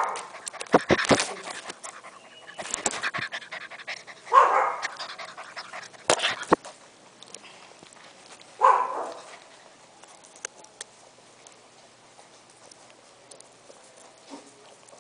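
Golden retriever puppies panting close to the microphone, with three louder breathy bursts a few seconds apart. Sharp knocks and scrapes in the first several seconds as a puppy paws and bumps the camera.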